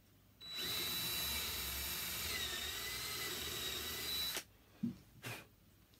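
Cordless drill with a quarter-inch bit boring through a wooden board to enlarge a pilot hole: the motor whine starts about half a second in, sags briefly in pitch midway as the bit bites, and cuts off after about four seconds. Two short knocks follow.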